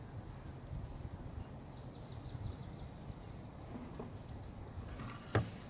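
Steady low outdoor rumble, with a bird giving a short, rapid trill of high notes for about a second, about two seconds in. A single sharp knock near the end.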